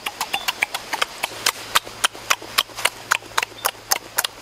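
Grilled pork ribs being eaten noisily: wet lip-smacking and chewing clicks, several a second and irregular.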